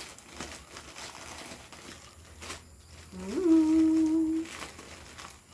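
Soft crinkling and tearing of parcel packaging being opened, then about three seconds in a person hums one held note that rises and then stays steady for over a second.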